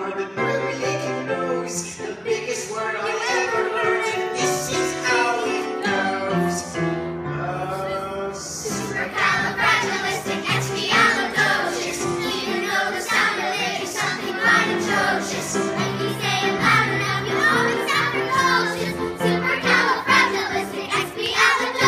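Show-tune singing with musical accompaniment: a few voices at first, then a group of children's voices joins in about nine seconds in and the sound grows fuller and louder.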